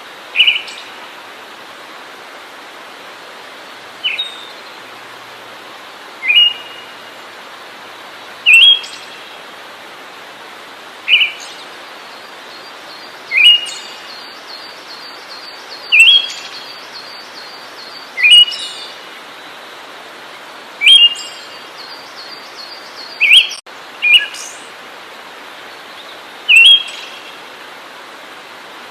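A songbird giving a short, sharp chirping call over and over, about every two to two and a half seconds, over a steady background hiss.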